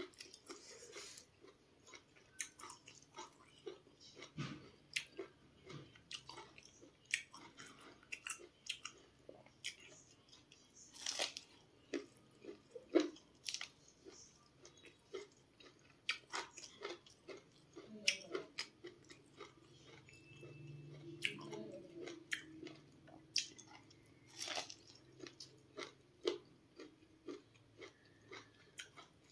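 Biting and chewing sweet corn kernels off the cob: many short, irregular crunches and clicks of teeth through the kernels, with chewing between bites.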